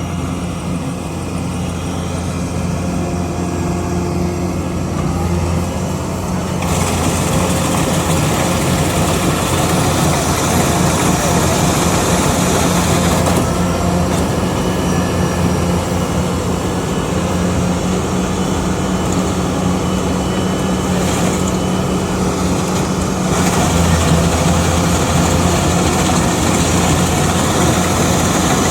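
Kubota DC-105X diesel combine harvester running steadily while harvesting, a continuous engine drone with mechanical noise that grows louder about seven seconds in.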